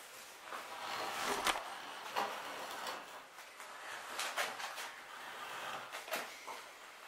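Irregular wooden knocks and scrapes as long softwood mast staves are handled and shifted on trestles, with one sharper knock about one and a half seconds in.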